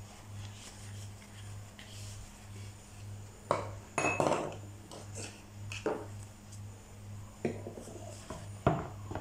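Scattered light knocks and clinks of plastic kitchenware being handled and set down on a wooden table: a small plastic bottle and a plastic measuring jug with a spoon in it. About half a dozen separate knocks, over a low hum.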